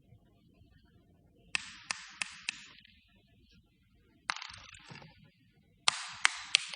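Small hard ball bouncing on a hard floor, dropped three times. Each drop is a few sharp clicks that come quicker as the bounces die away; the middle drop is one hit followed by a short rattle.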